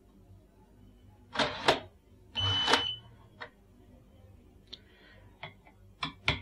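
Small screwdriver working the trimmer potentiometers on a circuit board: light clicks and two short scraping bursts, the second with a brief high-pitched beep in it about two and a half seconds in.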